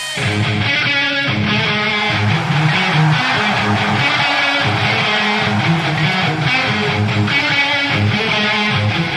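Background rock music with guitar and a steady bass line.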